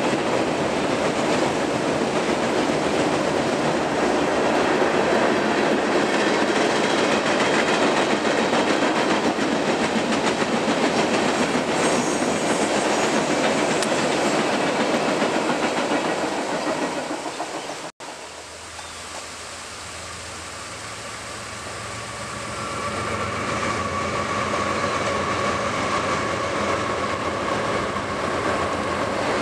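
Freight train of hopper cars rolling over a steel trestle bridge: a steady, loud rattle and clatter of wheels and cars that fades away. Then a CSX diesel locomotive's low engine drone grows louder as it leads an intermodal stack train onto the bridge.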